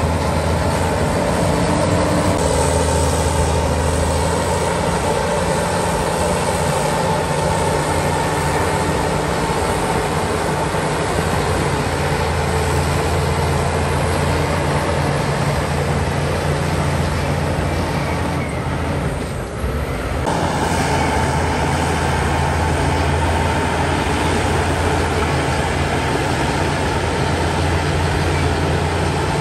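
Heavy diesel earthmoving machinery running steadily under load, with a deep, even engine hum; the sound briefly drops away about two thirds of the way through, then resumes.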